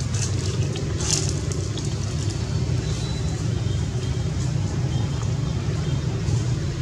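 A steady low rumble throughout, with a few light clicks or rustles in the first second and a half.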